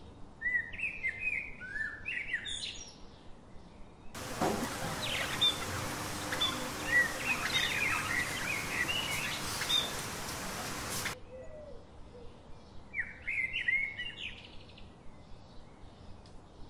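Budgerigars chattering: a dense run of quick chirps and warbles lasting several seconds, over a hiss. Before and after it come shorter phrases of small-bird chirps.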